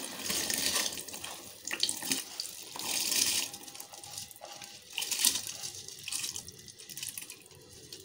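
Rice poured into a pot of hot water with peas and spices, splashing in several surges, loudest about three seconds in and again about five seconds in.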